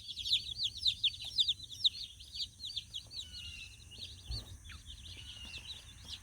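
A brood of day-old Cornish Cross broiler chicks peeping: many rapid, high chirps overlapping, busier at first and thinning out toward the end. A soft low bump about four seconds in.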